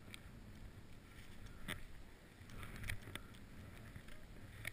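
Deep powder snow swishing steadily under a rider gliding downhill, with a few soft knocks.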